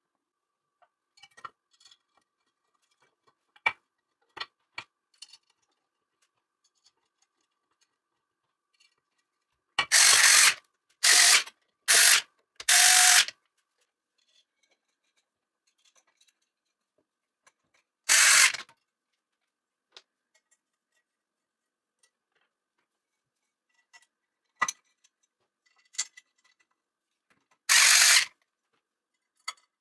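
Cordless screwdriver driving bolts into an aluminium frame plate in short runs: four quick runs in a row, another one a few seconds later, and a last one near the end. Light metallic clicks come between the runs.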